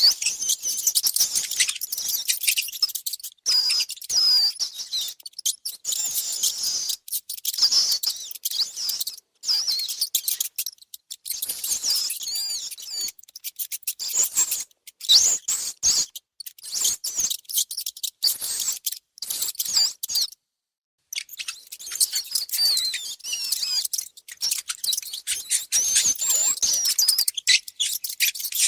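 Mice squeaking: a continuous run of short, high-pitched squeaks that glide up and down, mixed with scratchy clicking, with a brief pause about twenty seconds in.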